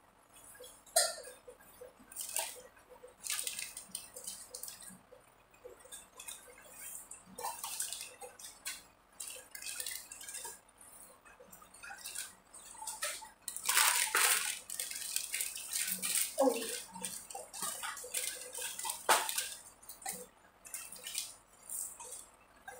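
Irregular small clicks, clinks and light knocks of household handling, with a longer burst of scraping and clatter about fourteen seconds in and a sharper knock about nineteen seconds in.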